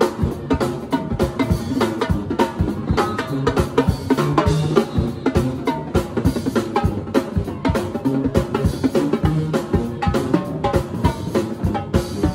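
Drum kit played live at a fast, busy pace: dense snare and bass drum hits with cymbals, in a steady run of rapid strokes.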